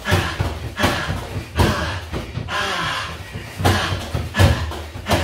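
Repeated round kicks thudding into a freestanding punch bag, about one kick every second.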